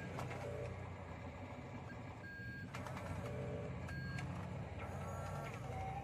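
Radio-controlled model Volvo articulated dump truck backing up: short reversing beeps a second or two apart over a steady low motor rumble.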